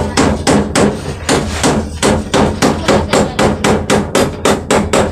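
A nail being driven into a plywood sheet with a hand-held stone used in place of a hammer: sharp, evenly spaced knocks, about three a second.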